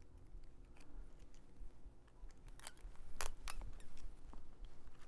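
A few sharp snips of scissors, the loudest bunched together a little past the middle.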